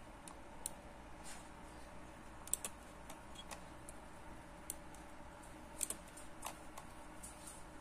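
Scattered light clicks of a computer mouse, a dozen or so at uneven intervals, the loudest about two and a half seconds in and again near six seconds, over a faint steady hum.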